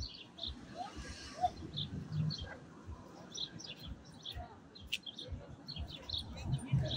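Small birds chirping in many short, scattered high calls over a faint street background, with a few light clicks.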